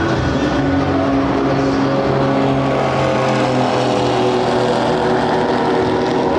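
Several race car engines running at once, their steady, overlapping engine notes at different pitches shifting slightly as the cars drive.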